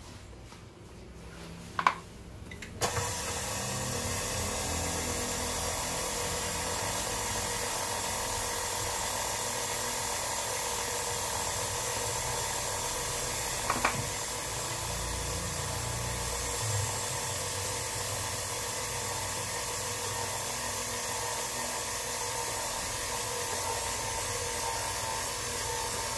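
KitchenAid 5-quart bowl-lift stand mixer's motor starting about three seconds in, just after a couple of sharp clicks. It then runs steadily, with its flat beater turning through flour in the steel bowl. There is a single brief knock about halfway through.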